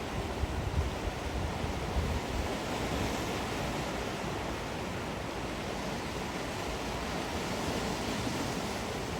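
Sea waves washing onto the shore: a steady surf noise, with wind buffeting the microphone in low gusts over the first couple of seconds.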